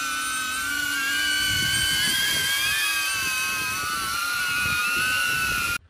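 DJI Avata ducted quadcopter hovering: a steady, high-pitched propeller whine made of several tones that waver slightly, cutting off suddenly near the end.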